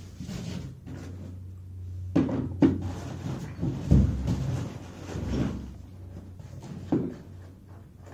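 A cupboard being opened and closed and rummaged in: several knocks and clatters, the loudest about two and four seconds in and another near seven seconds, over a steady low hum.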